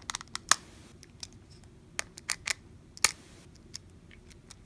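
Small precision screwdriver turning the 4-40 screws that hold a cooling fan to a metal case lid: scattered sharp clicks and light scrapes of the tip in the screw heads, the loudest about three seconds in.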